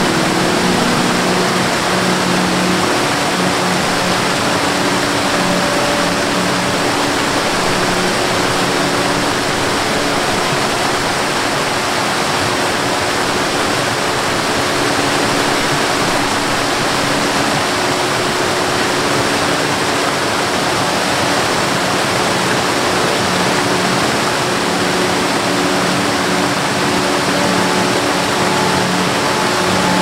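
Rushing water, a loud steady rush like a waterfall, with a few faint low held tones coming and going underneath.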